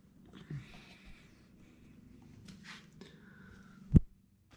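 Faint rustling and scraping noises, with one sharp knock about four seconds in.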